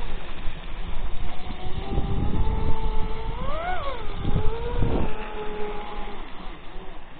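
Electric RC speedboat's motor and propeller whine as it runs fast across the water, the pitch swooping up and back down about halfway through as it passes and turns. Low rumbling noise runs underneath.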